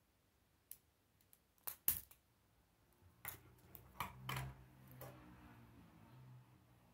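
K'nex plastic rods and connectors clicking and snapping together by hand: several sharp clicks, the loudest about two seconds in, with more around three to five seconds. A faint low rumble runs under the second half.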